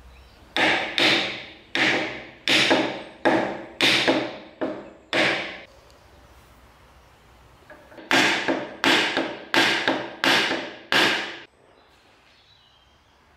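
Hammer blows in two runs, about nine strikes and then about five more after a pause of a couple of seconds. Each blow rings briefly and fades.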